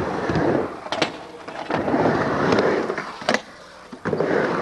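Skateboard wheels rolling across a ramp, the rumble swelling and fading three times as the skater rides back and forth. Two sharp clacks of the board striking, about a second in and again past three seconds.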